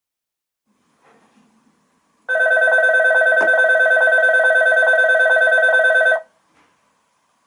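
An electric bell rings steadily for about four seconds, starting about two seconds in and cutting off abruptly, with a single click partway through.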